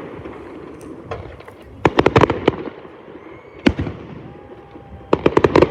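Aerial fireworks going off in a rapid cluster of sharp bangs about two seconds in, a single bang near four seconds, and another quick cluster near the end, with a faint thin whistle in between.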